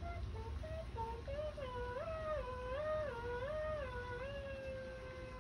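A person humming: a few short notes, then a slow rise and fall between two pitches about once a second, settling into one long held note.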